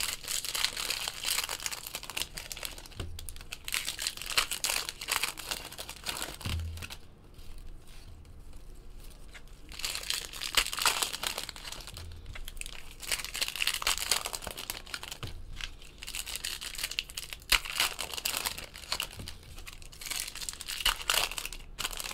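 Foil trading-card pack wrappers crinkling and tearing as they are opened, with the cards handled and shuffled, in irregular bursts. A few soft low knocks are heard, several seconds apart.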